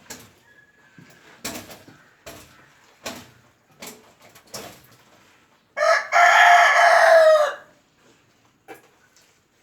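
Rooster crowing once, about six seconds in: a loud, pitched call lasting under two seconds that starts with a brief catch and drops slightly at the end. Before it come several short, sharp sounds.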